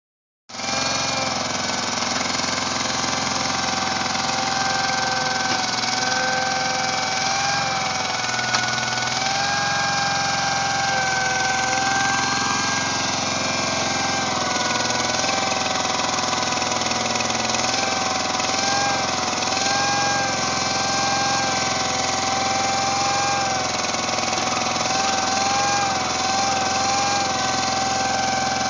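Case garden tractor's engine running steadily as it drives and pushes dirt with a front loader bucket, with a high whine that wavers slightly in pitch. A single short knock comes about eight seconds in.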